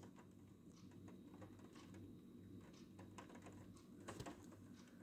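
Faint, irregular ticks of light raindrops landing on a hard surface, with a small cluster of louder ticks about four seconds in.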